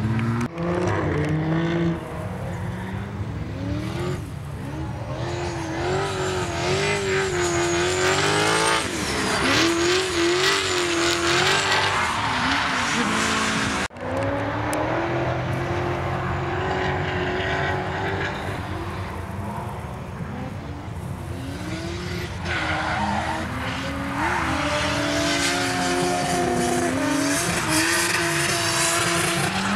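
Drift cars' engines revving up and down hard as the cars slide through corners, with tyres squealing. The sound breaks off briefly about halfway through.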